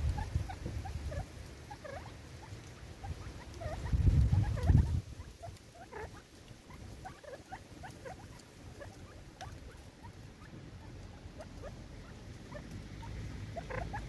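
Crested francolins pecking seed off a log: a steady scatter of short, soft ticks and chirps, with a brief low rumble about four seconds in.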